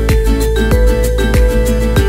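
Background music with a steady beat, drums and bass.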